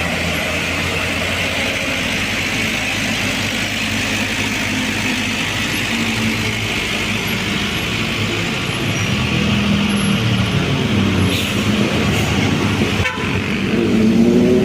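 Heavy diesel truck engine pulling a load up a steep hill, with its horn sounding. The engine note grows louder and rises near the end.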